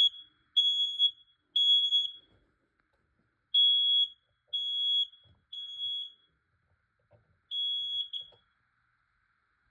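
Smoke alarm set off by a few sprays of aerosol test smoke, sounding a high beep in the standard three-beep temporal pattern. It gives two full sets of three with a pause between, then a single beep and a short blip about eight seconds in, and falls silent.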